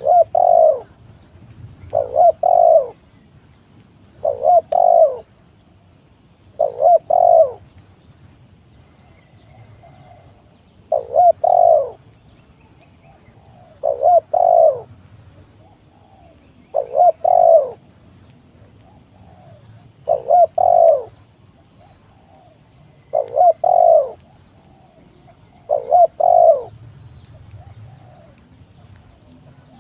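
Spotted dove (tekukur) calling: its short, multi-note cooing phrase repeated about ten times, one every two to four seconds.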